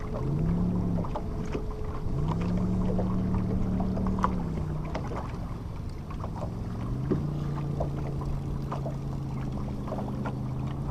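Boat motor humming, its pitch rising and falling as its speed is changed, then holding lower and steady in the second half, with a few sharp clicks over it.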